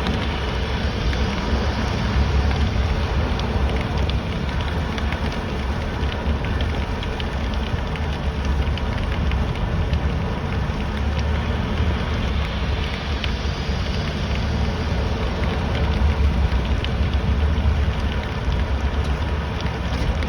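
Steady rain on a car driving along, with a continuous low road rumble underneath and scattered ticks of drops hitting.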